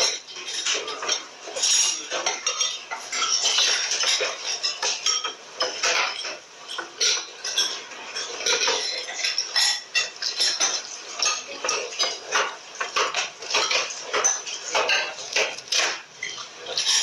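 Forks and spoons clinking against plates and bowls as several people eat, a busy, irregular run of short clinks that never settles.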